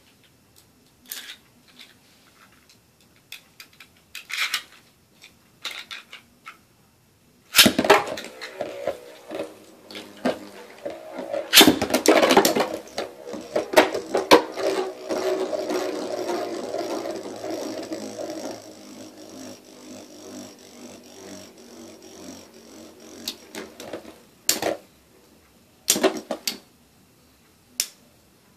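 Two metal Beyblade spinning tops are launched into a bowl stadium and clash with a run of loud, sharp knocks. They then spin on with a steady grinding rattle that slowly fades as they lose speed and stop. A few single clicks sound before the launch and near the end.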